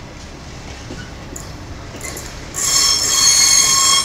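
Container freight wagons rolling past with a steady rumble; about two and a half seconds in a loud, shrill wheel squeal of several high tones sets in and cuts off sharply near the end.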